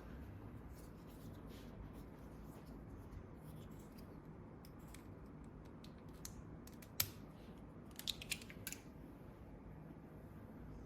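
Small sharp clicks and snips from the toy play set's little plastic parts being handled and fitted, with a few louder clicks about seven and eight seconds in.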